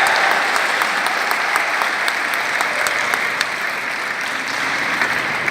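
Audience applauding, a dense patter of clapping that slowly fades.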